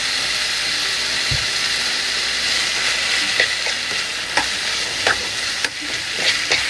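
Chicken breast stir-frying in a hot pan: a steady sizzle, with the spatula clacking and scraping against the pan several times in the second half.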